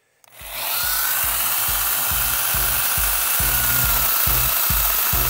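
Angle grinder fitted with a chainsaw adapter, used as an electric chainsaw, starting about half a second in and running steadily with a high whine as it cuts into the base of a thorny bamboo pole (Bambusa blumeana). Background music with a steady low beat plays beneath it.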